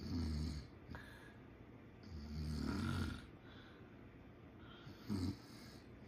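A man snoring in his sleep: three low snores, a short one at the start, a longer one about two seconds in, and a brief one near the end.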